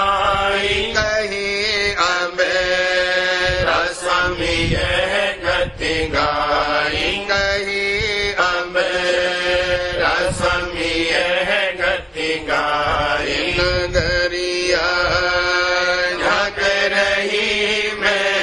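Devotional shabd chanted in a melodic line over a steady low drone.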